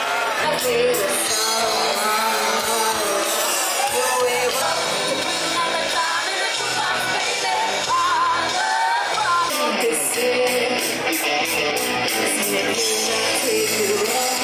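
A live rock band playing: singing over electric guitar and drums, with cymbal strokes coming in about two-thirds of the way through.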